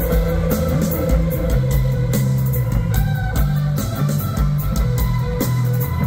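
Rock band playing live through a large PA, recorded from the crowd: electric guitar and a moving bass line over steady drums and cymbals.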